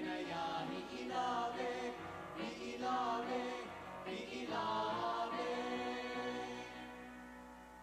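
Choir singing a phrase that ends on a held chord, which fades away over the last couple of seconds.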